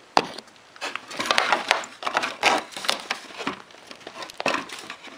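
3D-printed ABS plastic sluice sections scraping, rubbing and clicking against each other as the glued end piece is worked into place by hand, with a sharp knock just after the start.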